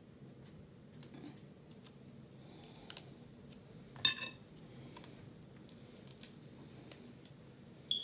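Metal fork clicking and clinking against a plate while eating, in scattered light taps, with one louder ringing clink about four seconds in and another just before the end.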